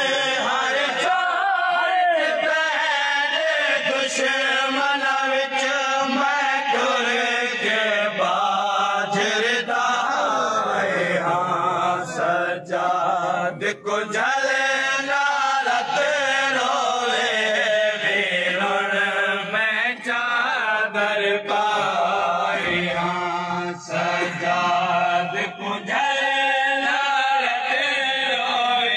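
Nohay, a Shia mourning lament, chanted by men's voices in a continuous line that slides in pitch.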